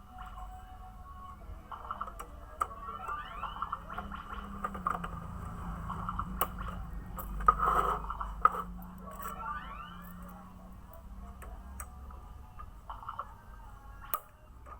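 Battery-powered toy bird in a cage chirping and twittering in short sweeping notes, with scattered clicks and a low hum underneath.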